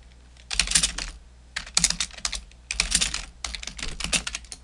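Computer keyboard being typed on in several quick runs of keystrokes, with short pauses between the runs.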